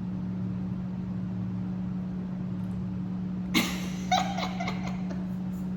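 Steady low hum, with two short sharp noises about three and a half and four seconds in, followed briefly by faint crackling.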